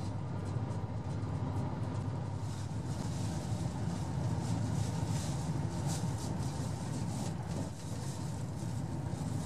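Steady running noise inside the cabin of a KiHa 189 series diesel multiple unit cruising at about 110–116 km/h: a continuous low rumble of engine and wheels on rail, with a faint steady whine and scattered light crackles.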